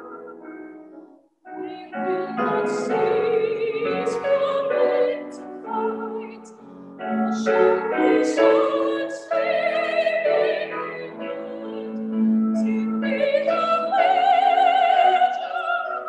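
A woman singing a hymn solo in a trained voice with vibrato, with piano accompaniment. There is a brief break between phrases just over a second in.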